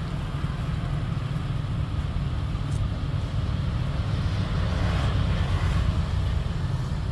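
Steady low outdoor rumble with a faint hiss above it, a little louder for a couple of seconds in the middle.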